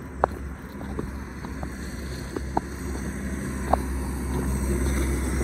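Footsteps on a dirt roadside, a few scattered crunches and clicks over a steady low rumble.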